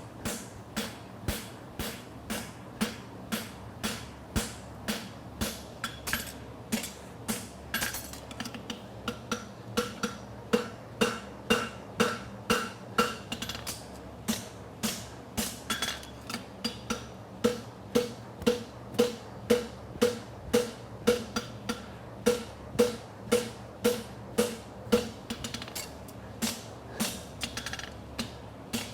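Blacksmith's hammer striking hot steel bar stock on an anvil in a steady rhythm of about two blows a second, scarping (thinning and tapering) the bar's end ready for a forge weld. Each blow rings briefly, and the blows grow louder about ten seconds in.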